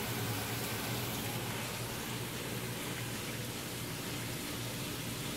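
Haas GR510 CNC gantry router drilling 316L stainless steel with a cobalt drill at 600 rpm under flood coolant: a steady hiss of coolant spraying and running over the part, with a low steady machine hum beneath it.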